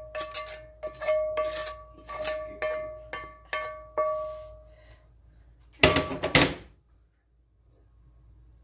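Metal cookware tapped by a utensil about two to three times a second, each tap leaving a short pitched ring, as mushrooms are knocked off into a baking dish. About six seconds in there is a louder double clatter of metal cookware.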